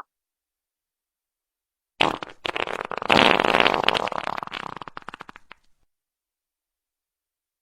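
A long wet fart sound effect starting about two seconds in: a sputtering run of rapid flaps that fades out over about three and a half seconds.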